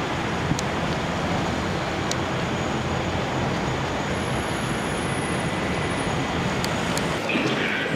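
Steady running noise of a moving vehicle, an even rumble with a low hum, holding level throughout.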